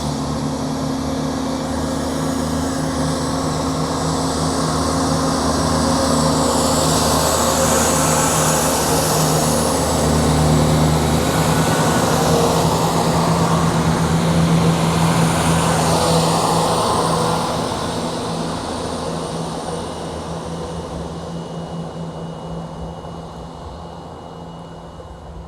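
Diesel train passing, a steady engine drone with rail noise that builds up, holds loud for about ten seconds, then fades away over the last several seconds.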